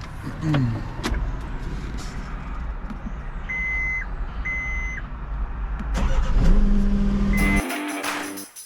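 John Deere 317G skid steer's diesel engine running, with two beeps of its backup alarm about a second apart. The engine revs up and holds near the end, then music comes in.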